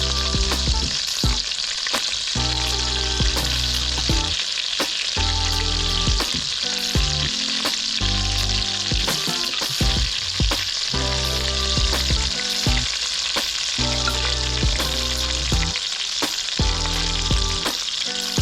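Tuatua batter frying in a pan of hot butter and olive oil, with a steady sizzle throughout. Music plays underneath.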